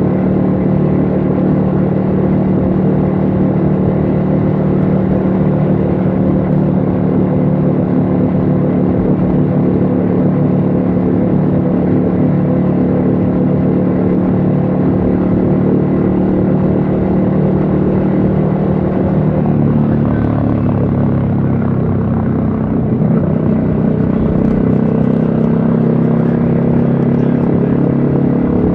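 Yamaha XSR155's single-cylinder 155 cc engine running steadily under way, heard from the rider's helmet. About twenty seconds in the engine note drops, then steadies again a few seconds later.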